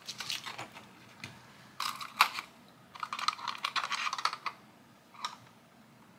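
Light plastic clicking and rattling as a tiny Playmobil toy bike is handled and snapped onto the rear of a 1/24-scale RC crawler truck, in bursts of rapid clicks with one last click about five seconds in.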